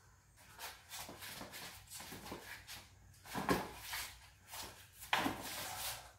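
Sneakers shuffling and scuffing on a concrete floor and the occasional smack of boxing gloves during sparring, with irregular knocks, the loudest about three and a half and five seconds in, over a low steady hum.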